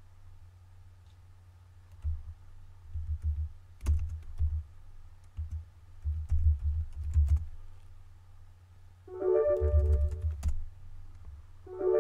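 Typing on a computer keyboard in irregular bursts of key presses. Near the end a short chord of several notes sounds twice.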